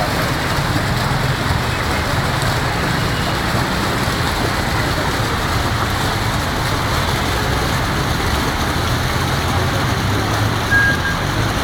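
Steady, dense street traffic noise from many cars, a continuous wash of engines and tyres with no single event standing out. A brief high beep sounds near the end.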